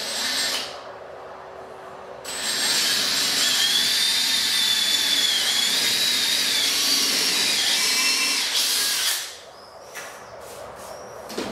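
Electric drill boring a hole into laminated chipboard: a brief blip of the motor at the start, then about seven seconds of steady drilling with a whine that wavers in pitch as the bit cuts. A few light clicks follow near the end.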